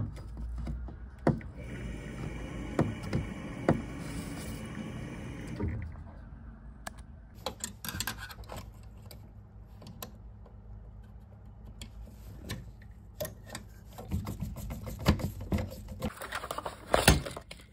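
Scattered clicks, taps and knocks of hands and a screwdriver on the plastic and metal parts of a combi boiler as the pump is refitted. A burst of louder knocks comes near the end.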